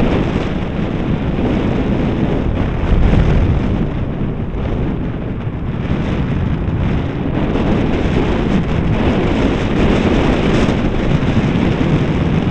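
Wind buffeting the microphone of a camera mounted on a moving electric bike, over tyre noise on the asphalt; a louder gust comes about three seconds in.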